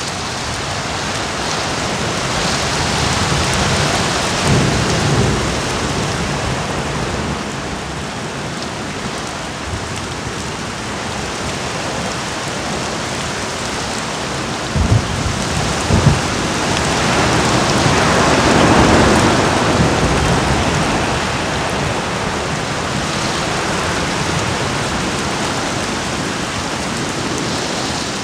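Steady heavy rain in a thunderstorm, with thunder breaking in: a rumble about four seconds in, two sharp claps about halfway through, and a longer rolling swell a few seconds later.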